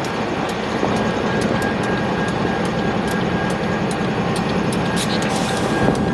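Train rolling past: a steady rumble with sharp clicks about twice a second from wheels over rail joints, and a thin steady high whine.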